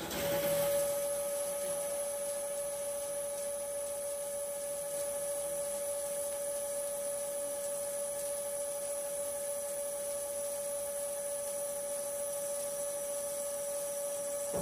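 CNC lathe cutting the threads on a steel drill-rig saver sub under coolant, with a steady whine held on one tone throughout. The machinist takes this nasty sound to be swarf in the steady-rest bearings.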